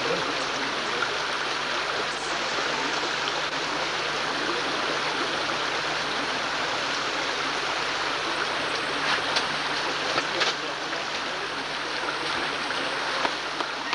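Stream water rushing steadily over rocks, with a few sharp clicks about two-thirds of the way through.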